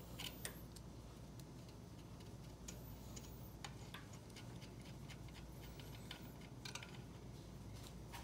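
Faint, irregular small clicks and ticks of a hand tap being turned in a tap handle, cutting 6 × 1 mm threads for a helicoil, over a low steady hum.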